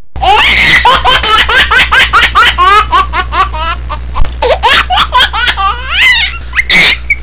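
A young child laughing hard: a long run of quick, high-pitched giggles, several a second, over a steady low hum.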